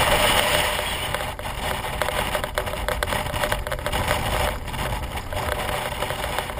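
BMW R1200GS motorcycle's boxer-twin engine running as the bike rides along, mixed with wind noise over the microphone and frequent small knocks and rattles from the rough road surface.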